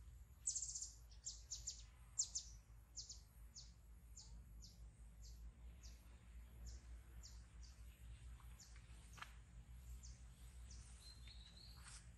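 A bird chirping faintly: short, high chirps repeated about every half second, loudest in the first couple of seconds and then fading, with a brief higher whistle near the end.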